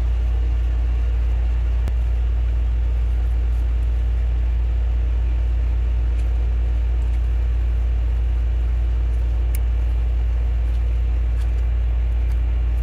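Steady low hum that does not change, with a couple of faint light ticks over it.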